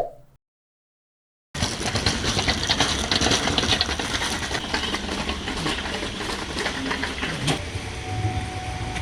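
Steady rain falling, a dense even patter of many small drops, starting about a second and a half in after a brief click.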